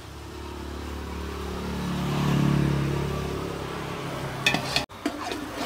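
Spiced masala paste sizzling in oil in a pan as it is stirred, under a low engine hum that swells and fades about two to three seconds in. A few sharp clinks come near the end.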